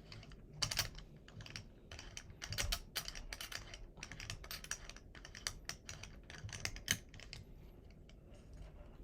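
Irregular clicks and light metal taps of an Allen wrench working the grip screw, tightening a wooden pistol grip onto an AK-pattern pistol. The clicking thins out near the end.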